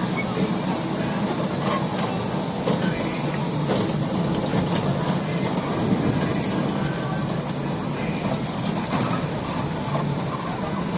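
Small ride-on mall train running, a steady rumble with scattered light clicks.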